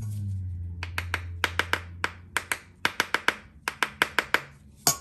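A heavy butter knife tapping a stainless steel bath bomb mold half: about twenty quick metallic taps in small groups, the last one loudest. The tapping loosens the packed bath bomb so it releases from the mold.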